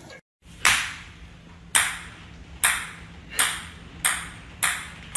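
A small hard ball bouncing on a hard floor: about seven sharp, ringing pings that come closer and closer together.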